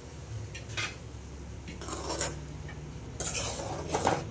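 A steel ladle stirring a thin, bubbling stew in an aluminium pot. It scrapes and knocks against the pot several times, loudest near the end, over a steady low hum.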